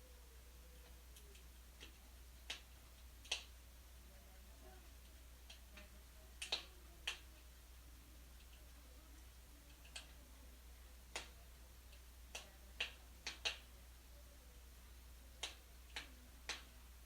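Wood fire crackling in a fireplace: sparse, irregular sharp pops and snaps, about one a second, over a faint steady low hum.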